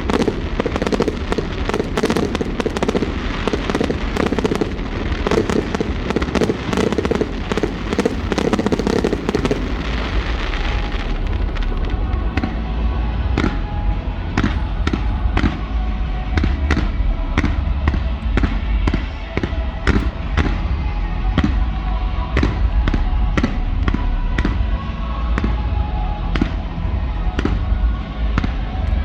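Fireworks bursting: a dense, rapid barrage of crackling bangs for about the first ten seconds, then separate sharp bangs coming a few per second.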